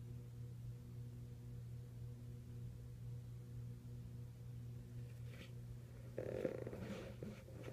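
A steady low hum with a few faint overtones. From about five seconds in there are brief scratchy rustling noises, loudest near the end, with one sharper knock among them.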